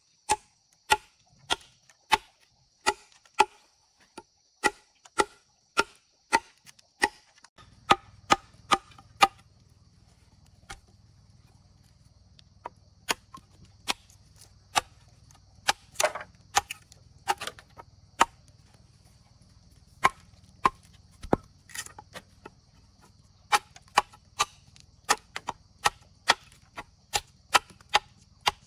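Rhythmic chopping: a blade striking wood over and over, about two strokes a second, with a pause of a few seconds near the middle. A steady high-pitched drone runs behind it.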